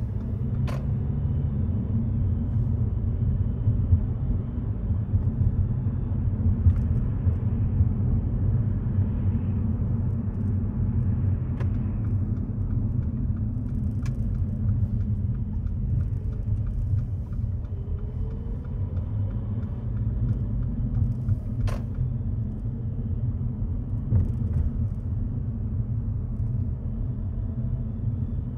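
Car driving on the road, a steady low rumble of road, tyre and engine noise as picked up by a dashcam, with a few brief clicks.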